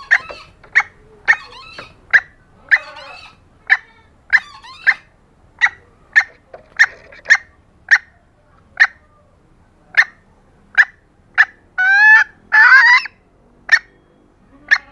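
Female green junglefowl calling: a run of short, sharp notes about one or two a second, with two longer, louder calls near the end. It is a hen's call to males, used to lure a cock.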